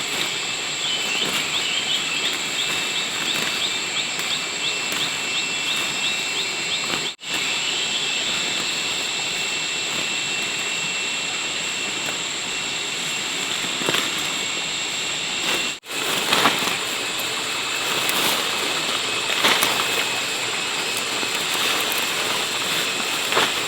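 Steady outdoor ambience: an even hiss under a high steady tone, with a quick run of chirps in the first few seconds. The sound drops out briefly twice.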